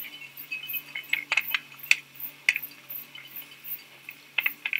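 Irregular sharp metallic clinks and clacks, several in quick succession through the middle and another cluster near the end, over a faint steady hum.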